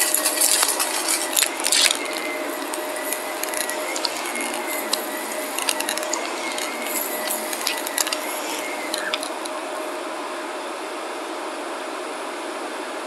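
An upright bagless vacuum cleaner runs steadily over carpet. Over its steady motor hum comes a rapid ticking and crackling of fine dirt and grit being sucked up. The crackling is heaviest in the first couple of seconds and mostly dies away about nine seconds in.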